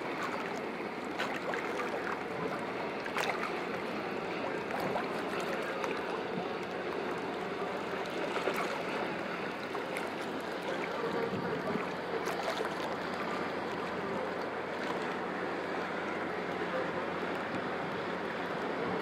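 Small wind-driven waves on a lake lapping at the near shore: a steady wash of water with a few brief, sharper splashes and ticks scattered through it.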